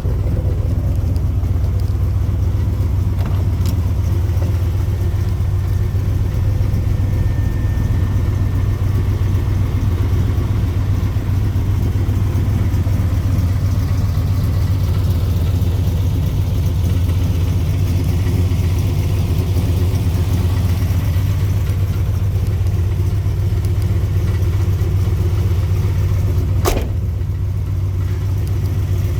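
A 383 stroker small-block V8 idling steadily through headers and dual exhaust, a deep even rumble. A single sharp click comes near the end.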